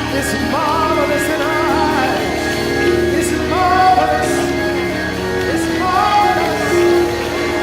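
Worship music with singing over sustained keyboard chords and a light regular beat.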